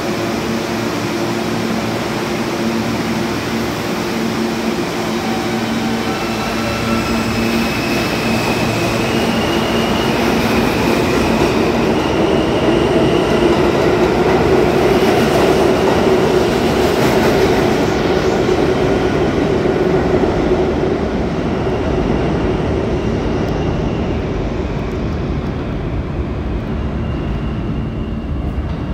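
A New York City R160 subway train pulls out of the station. A steady electric hum gives way to a whine that steps up in pitch as the train gathers speed. Then the passing cars' wheels and rumble swell loudest and fade away.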